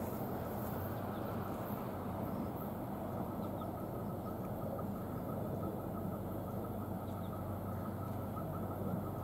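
Steady low rumble of outdoor background noise with a faint hum, and faint short chirps repeating a few times a second.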